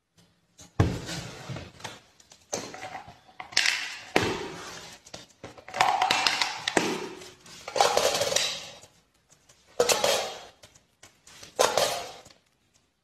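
Coins dropping into a metal tin coin bank, each landing with a clink and a short rattle, about eight times at intervals of one to two seconds.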